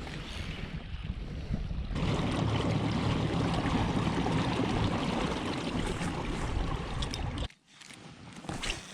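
Wind rushing over the microphone, with a heavy low rumble, over water sounds from a kayak on open water; it grows louder about two seconds in and cuts off abruptly near the end.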